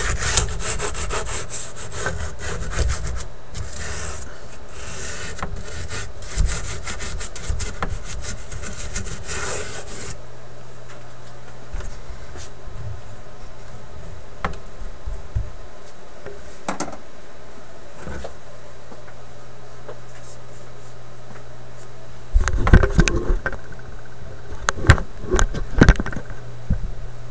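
Rapid rubbing and scraping on the paper lining of a wooden record player cabinet, working at old, water-softened paper, for about ten seconds. Then it goes quieter, leaving a low steady hum and a few light taps, with a cluster of louder knocks and handling noises near the end.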